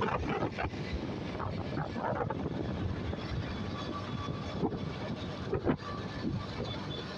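Wind buffeting the microphone over the steady rush of road traffic, recorded from a moving vehicle, with a couple of sharper gusts a little past the middle.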